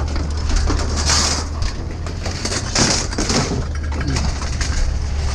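Scrap metal clanking and scraping as it is handled and unloaded, in several irregular clatters, over a steady low engine hum.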